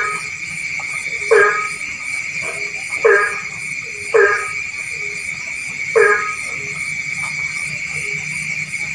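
A frog calling at night with short, loud croaks, about five in all, one every one to two seconds. Behind it runs a steady high-pitched chorus with a faint, fast pulsing higher still.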